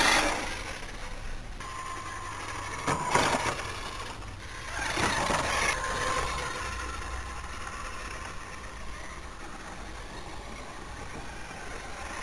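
Tamiya TL-01 electric RC car's motor and drivetrain whining in surges as it is driven, loudest at the start and twice more in the first half, then a fainter steady whine as it runs farther off.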